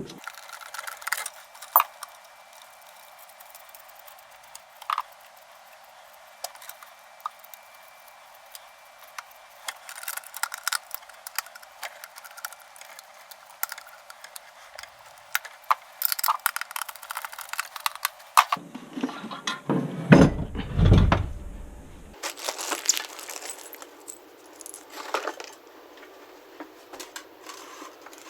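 Scattered clicks and small metallic clinks of tools and metal parts being handled, with a louder, deeper clattering rattle for about two seconds roughly two-thirds of the way through.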